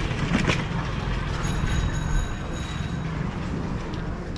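Cycle rickshaw passing close, its frame and wheels rattling and squeaking over a steady wash of street noise, with a few sharp clicks in the first second.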